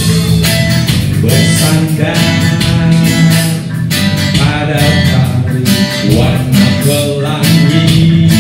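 Live band playing a reggae-style groove: guitar chords struck in a steady rhythm over bass guitar.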